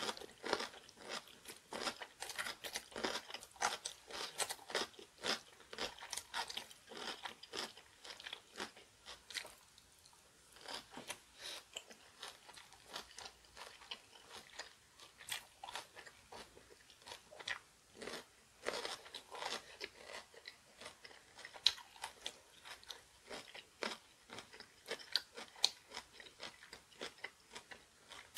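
A person chewing crunchy kimchi: a run of crisp, irregular crunches, several a second, with a short lull about ten seconds in.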